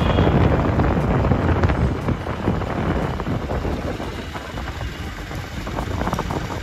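Wind buffeting the microphone over the rumble of a moving vehicle and road noise, easing off slightly after about two seconds.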